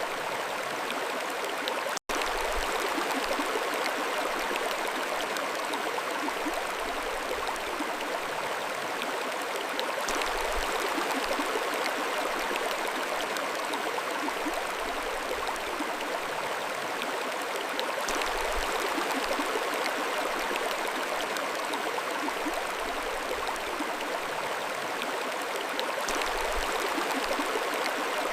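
Mountain stream flowing steadily: an even rush and babble of water. About two seconds in it cuts out for an instant.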